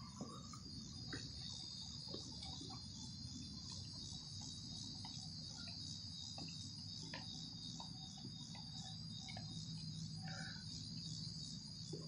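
Steady high-pitched chorus of insects chirring, with a faint low rumble beneath and a few light ticks.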